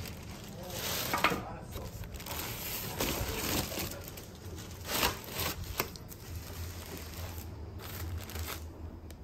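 Clear plastic garment bags crinkling and rustling as wrapped clothes on hangers are handled in a cardboard box, with a few sharper crackles, the loudest about a second in and again about five seconds in.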